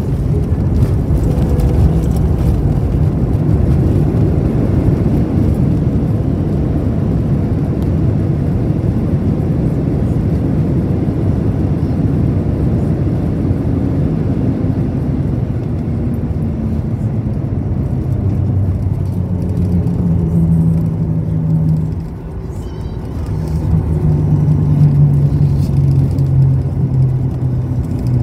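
Cabin noise of a jet airliner decelerating on a wet runway just after touchdown, spoilers raised: a loud low engine and rolling rumble that slowly eases. In the last third a steady low droning engine tone comes up, dips briefly about two-thirds of the way in, then rises again.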